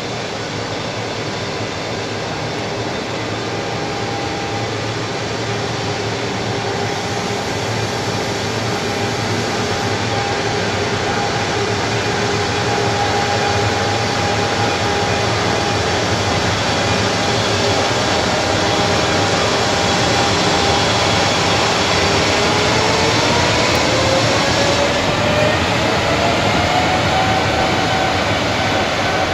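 JR Freight EF210 electric locomotive moving along the yard tracks: a steady rumble of wheels on rail under a humming traction-motor whine, which rises in pitch about three-quarters of the way through as the locomotive speeds up. The whole sound grows slowly louder as it draws near.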